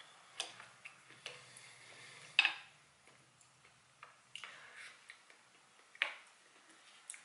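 A wooden spoon clicking and scraping against a ceramic bowl as food is scooped, with soft chewing and mouth sounds between. There are several sharp clicks, the loudest about two and a half seconds in.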